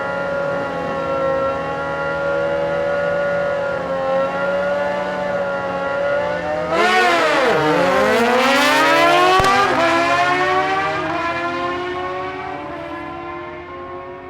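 Drag-racing motorcycle engines held at high, steady revs, then launching about seven seconds in: a sudden loud burst as they pass close by, pitch dropping and then climbing as they accelerate through the gears, fading away over the last few seconds.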